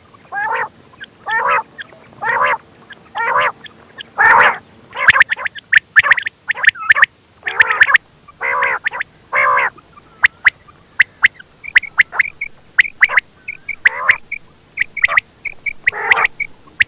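Quail calling over and over: short, raspy, bubbling calls about once a second, broken up by sharp clicks. A run of brief high chirps comes in the middle.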